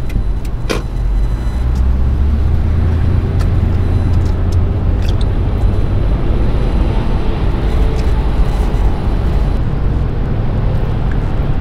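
Steady low road and engine rumble heard inside a vehicle's cabin while it tows a travel trailer through traffic, with a single sharp click near the start.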